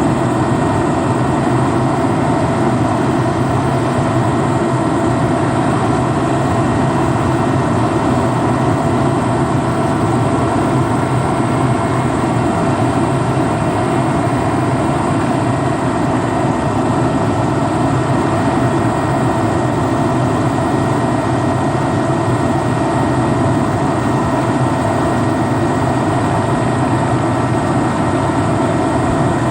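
Loud, steady drone of a vehicle's engine running without change, with a few thin steady tones over the noise.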